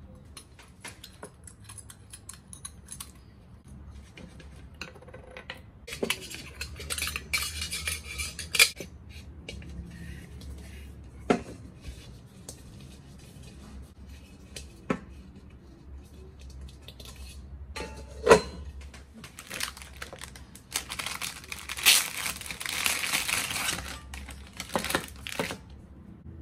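Metal cookware being handled while unboxing a grill pan and its stainless steel lid: scattered clinks and knocks, the sharpest about two thirds of the way through, with two stretches of plastic wrapping rustling.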